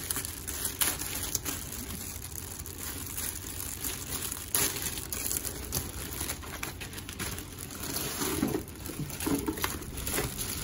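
Clear plastic wrapping crinkling and rustling as hands tug it open and pull it off a padded laptop bag, with irregular crackles throughout.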